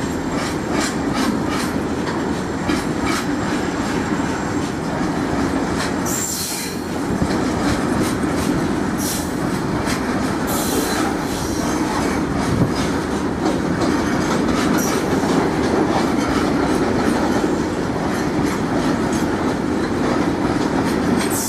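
BTPN tank wagons of a freight train rolling past close by, their wheels clacking over the rail joints in a steady run of clicks. A few times the wheels give brief high-pitched screeches.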